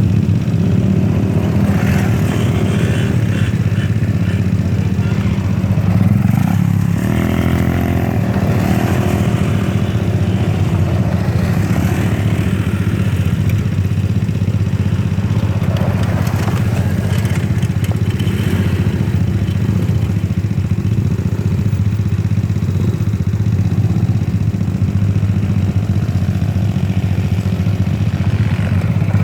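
ATV engine running steadily at riding speed.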